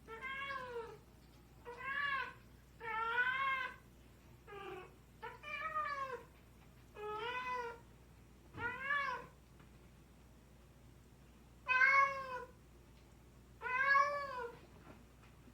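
Domestic cats meowing, about nine separate meows, each rising then falling in pitch. After a pause of about two seconds, two louder meows come near the end.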